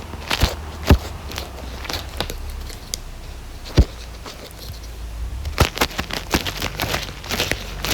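Light-up ear pick scraping and tapping directly on an iPhone's microphone, ear-cleaning ASMR: irregular scratchy crackling with sharp clicks about a second in and just before four seconds, growing busier in the last couple of seconds.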